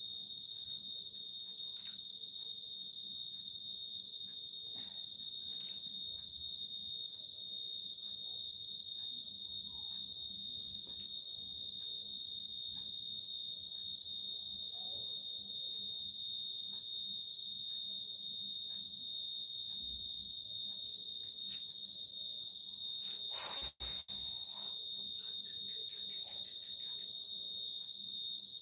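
A steady high-pitched insect trill. A few brief clicks or knocks sound over it, the loudest about 23 seconds in.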